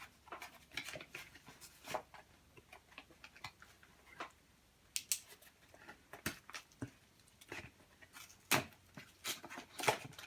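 A plastic blister pack of trading cards being handled and opened: faint, irregular clicks and short crinkles of plastic and card.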